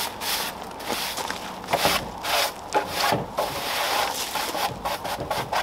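Stiff-bristled hand brush sweeping sawdust off freshly sawn pine boards, in quick, uneven scrubbing strokes about three a second.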